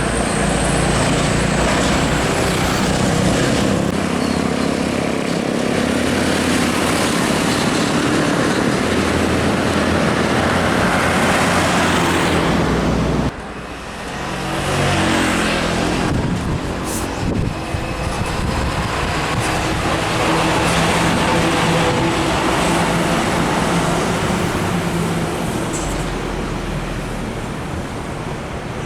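Heavy trucks and other traffic passing on a highway: diesel engines running with tyre and road noise. The noise drops suddenly about halfway through, then swells again as another vehicle comes by.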